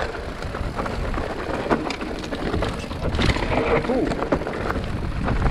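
Mountain bike riding fast over rocky trail: wind buffeting the microphone in a steady low rumble, with many quick clicks and knocks from tyres and bike on loose stones.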